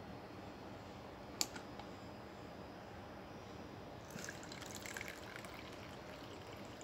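A sharp click about a second and a half in, then a drink being poured into a small cup for about a second, about four seconds in.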